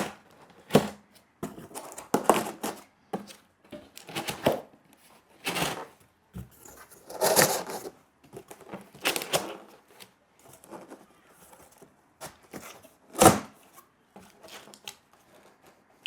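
Corrugated cardboard panels being handled and fitted together by hand: irregular scraping, rustling and short knocks as the cardboard pieces are slid and pressed into place, with a sharper knock about 13 seconds in.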